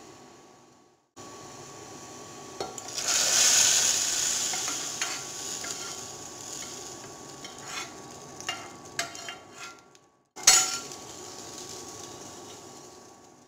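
Hot coconut-oil tempering of shallots and mustard seeds poured into the curry, sizzling loudly about three seconds in and dying down over several seconds. A few light clinks and scrapes of a spoon on the pan follow, then one sharp clatter near the end.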